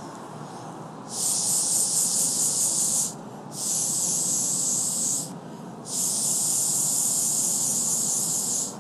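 Air hissing through a Bark Art blow pen blown by mouth, spraying marker colour onto the hair: three long blows of about two seconds each, with short pauses between them.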